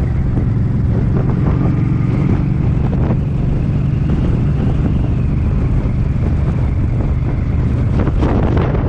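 Suzuki Boulevard M50's V-twin engine running at a steady cruise, with strong wind buffeting the microphone.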